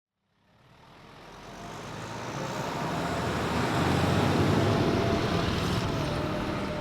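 Steady mechanical rumble and noise fading in over the first few seconds, with a faint steady tone running through it.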